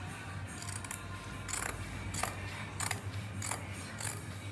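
Dressmaking shears cutting through fabric backed with lampshade paper: a series of about five crisp snips, roughly one every two-thirds of a second, starting about a second and a half in.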